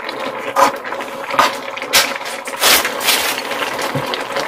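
Metal ladle and spoon scraping and clinking against a pan of tteokbokki as saucy rice cakes are scooped out, a short knock or scrape every half-second to second.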